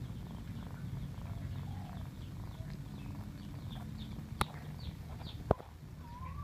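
Domestic cat purring, a low pulsing rumble, while her kittens nurse. Faint high chirps sound throughout, and two sharp clicks come in the second half, the second one the louder.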